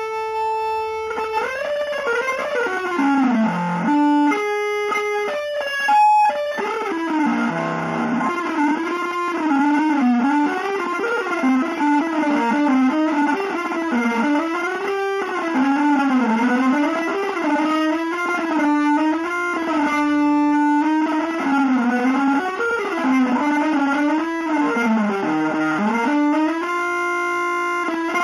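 Electric guitar playing a single-note melodic line with smooth slides and bends between notes and a long held note near the end.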